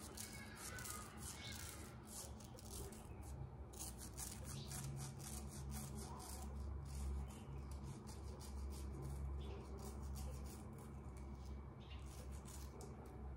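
Straight razor scraping through lathered stubble in many short strokes, a crackling rasp that thins out near the end. A steady low hum sits underneath.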